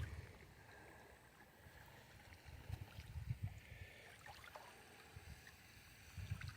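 Faint river water sloshing and gurgling in the shallows, with a few soft low bumps.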